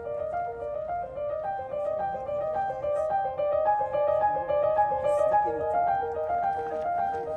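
Background piano music: a steady, repeating pattern of short notes.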